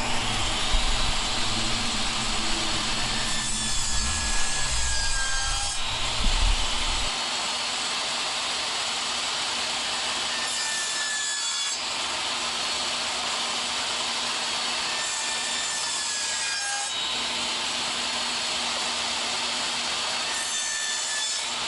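Table saw cutting through the sides of a walnut box to part the lid from the base: a steady saw noise with a shift in tone about every five or six seconds as each side is cut.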